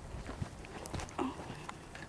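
Irregular footsteps and rustling through dry brush and undergrowth, with scattered small clicks and knocks.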